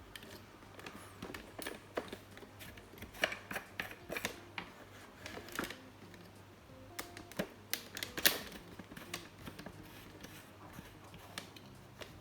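Scattered light clicks and taps from trading cards and packaging being handled on a table, the loudest about eight seconds in, over a faint low hum.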